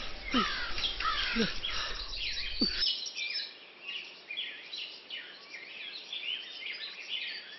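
Many birds calling and chirping throughout. For the first three seconds there are also splashing steps of someone wading through shallow water, about one a second.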